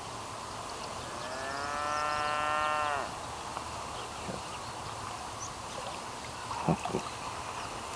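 A cow mooing once: a single long call of about two seconds, starting about a second in and dipping slightly in pitch as it ends. Two soft knocks follow near the end.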